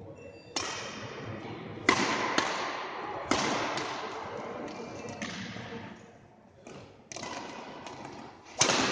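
Badminton rally: rackets striking the shuttlecock, about seven sharp hits spaced roughly a second apart, each echoing in the sports hall.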